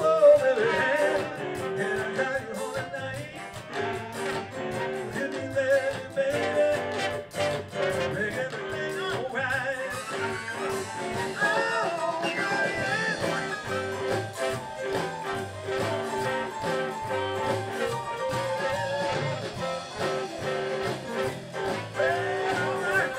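Live band playing a blues and rock-and-roll instrumental break, with guitar lines over a steady drum beat.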